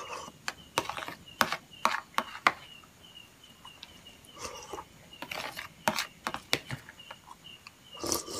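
Close-up eating sounds: a metal spoon clicking and scraping against a plastic plate, and wet slurps and smacks as rice in young coconut water and milk is eaten off the spoon. Behind it, a faint high chirp repeats steadily about three times a second.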